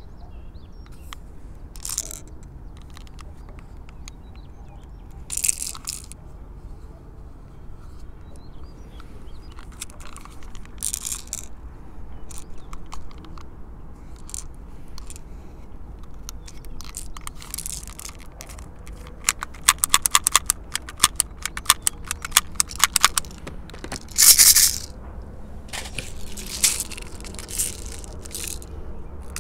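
Handling noises from a silver Beretta M92FS airsoft pistol and a bottle of plastic BB pellets: scattered small clicks and rattles, which thicken in the second half into a quick run of clicks. The loudest rattle comes about three-quarters of the way through.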